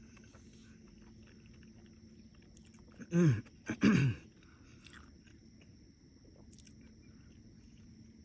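A man chewing a mouthful of burger with his mouth closed, with faint wet mouth clicks. About three seconds in come two short hummed "mmm" sounds, each falling in pitch, showing he likes the taste.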